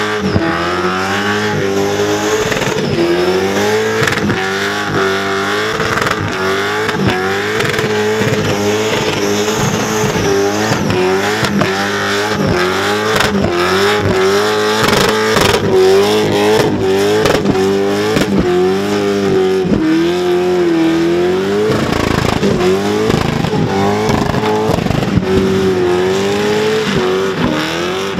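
Supercharged Holden Commodore's engine revving hard through a burnout while the rear tyres spin. The revs climb and drop again and again, about once a second, dipping briefly a little before the end.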